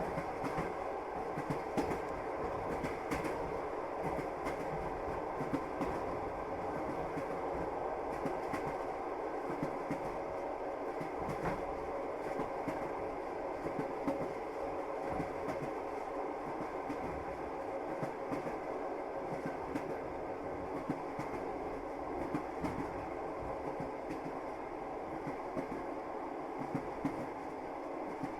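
A passenger train in motion heard from inside the carriage: the steady rumble of wheels running on the rails, with scattered small clicks and knocks.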